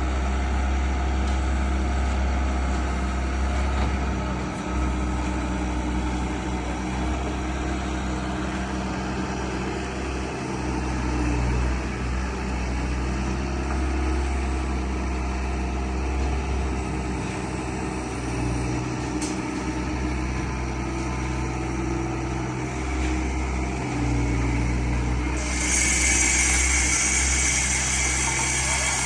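Steady low rumble of a running vehicle. A brighter hiss joins about 25 seconds in.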